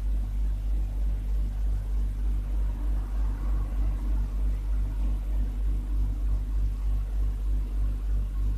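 A steady low hum that pulses evenly, about three beats a second.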